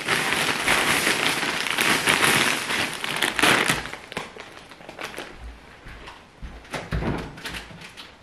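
Plastic grocery bags and packaging crinkling and rustling as groceries are unpacked, then quieter handling with a few light knocks in the second half.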